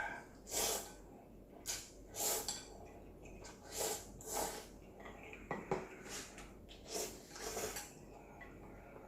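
A person eating instant ramyeon noodles: about eight short, noisy slurps, with bowl and utensil sounds.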